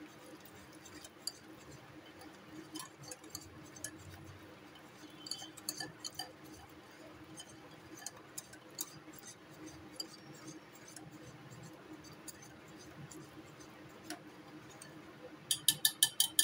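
Wire whisk beating semolina batter in a glass bowl: faint, scattered clinks of the whisk against the glass, ending in a quick run of louder, evenly spaced clicks near the end. A faint steady hum lies underneath.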